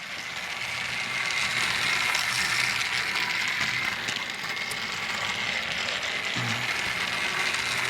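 Battery-powered Trackmaster Thomas toy engine running, its small motor and plastic gearbox giving a steady grinding whine.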